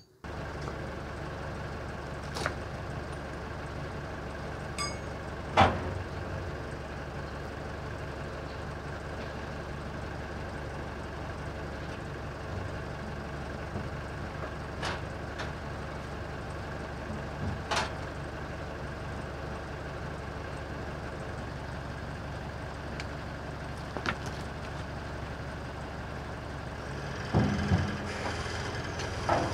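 Diesel engine of a CAT loader running steadily at idle, with a few sharp metallic knocks through it and a louder surge near the end.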